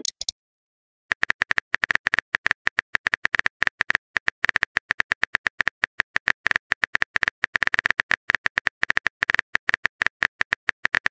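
Phone-keyboard typing sound effect: a rapid, uneven run of short sharp clicks, many a second, as a text message is typed out, starting about a second in.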